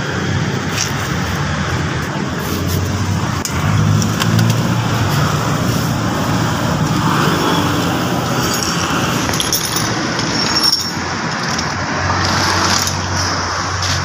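A motor vehicle engine running steadily, with handling knocks and rustles from the camera.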